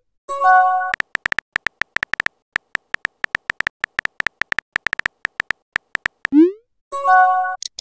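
Phone chat sound effects: a quick irregular run of keyboard tap clicks as a message is typed. About six seconds in comes a short rising swoop of the message being sent, then a brief chiming notification tone; a similar chime sounds near the start.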